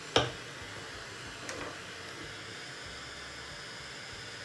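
Handheld gas torch flame hissing steadily, with one sharp click just after the start.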